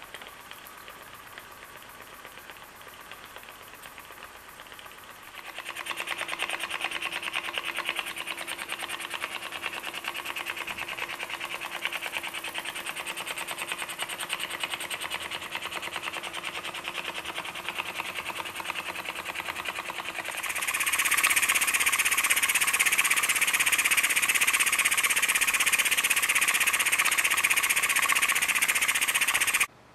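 GT05 model oscillating steam engine with a glass cylinder running steadily, its cylinder and steam exhaust puffing in a fast, even beat. The sound steps louder about five seconds in and again about twenty seconds in, then cuts off suddenly just before the end.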